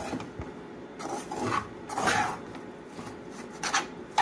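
Metal spoon stirring and scraping flour mixed with fried pork fat around a metal frying pan: a run of irregular, gritty scraping strokes.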